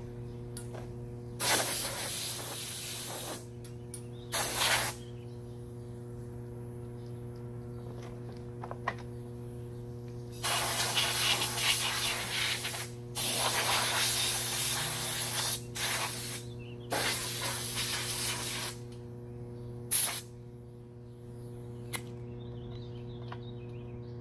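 Compressed air blown in short hissing bursts to clear dust off a go-kart before painting, over a steady low hum, with a sharp click near the end.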